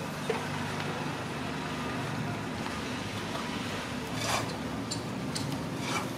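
Steady low background hum and noise, with a few faint clicks about four and five seconds in.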